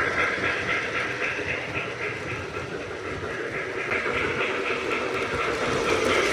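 O gauge model steam train running on a layout: wheels rolling on the track with the locomotive's electronic steam sound, repeating evenly. It grows quieter midway and louder again near the end.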